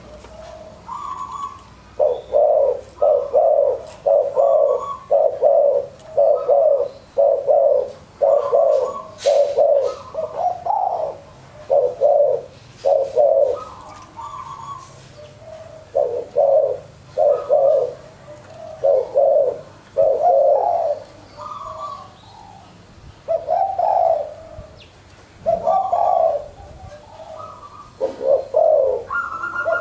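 Caged spotted doves cooing, one repeated phrase about once a second for the first half, then with longer gaps between calls. A decoy dove (pikat) is kept to call in wild doves.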